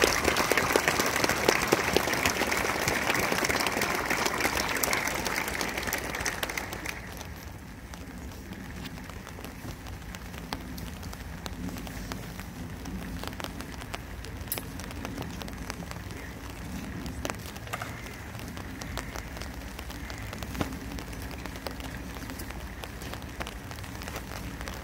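Applause from the crowd and cadets for the announced house trophy, dying away about six or seven seconds in, followed by rain pattering on umbrellas.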